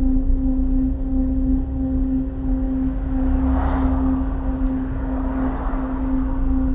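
Abnormal steady humming tone from around the right front steering shaft of a Honda Civic FD2 Type R driven at low speed, pulsing slightly and regularly over the low road and engine rumble. A brief rushing swell comes about halfway through.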